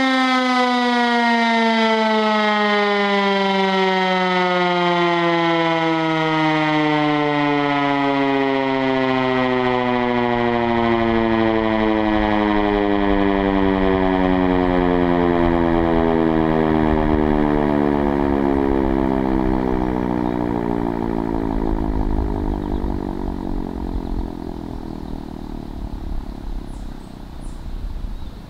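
American Signal OM-120 outdoor warning siren winding down at the end of its one-minute alert tone. It gives one long, steady fall in pitch and fades over the last several seconds, with a low rumble building underneath in the second half.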